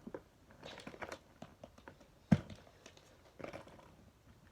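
Rustling and light clicking of small toys being handled, with one sharp knock a little over two seconds in.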